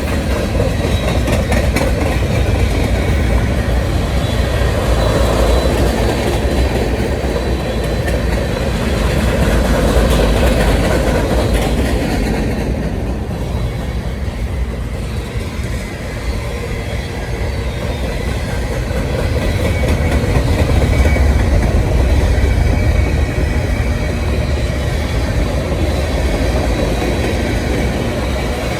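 Manifest freight train's cars rolling past: a steady, loud rumble that swells and eases slightly over the passage.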